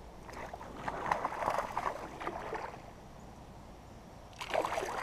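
Water splashing in irregular bursts beside a kayak: a hooked bass thrashing at the surface. The splashing runs for about two and a half seconds, with a shorter burst near the end.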